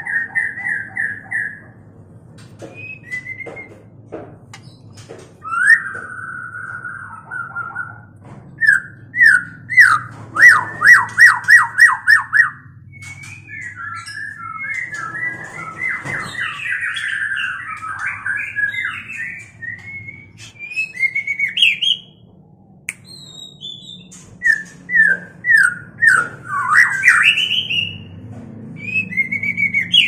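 White-rumped shamas calling: bursts of whistled notes, with a fast, loud run of about ten repeated notes a third of the way in, then varied chattering whistles and sharp rising notes. These are the calls of a shama pair in breeding condition.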